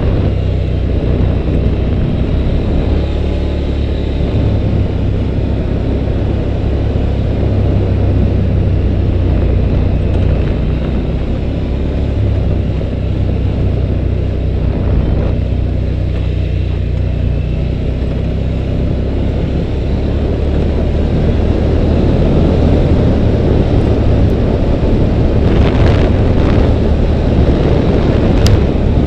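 2011 Polaris Sportsman 850 Touring ATV's engine running steadily under way, with tyre and road noise from a dirt track. A few sharp knocks come near the end.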